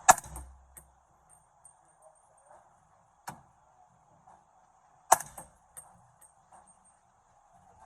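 Two suppressed shots from a 300 Blackout with an 8-inch barrel firing subsonic 200-grain rounds through a CAT JL suppressor, about five seconds apart: each a short, sharp report with no supersonic crack, followed by brief faint ticks. A much fainter single knock falls between them.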